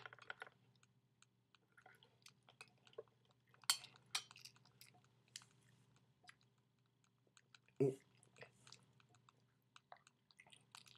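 Person chewing a wad of mint chewing tobacco: faint, scattered wet clicks and squishes of the mouth and lips, with one louder noise about eight seconds in. A steady low hum runs underneath.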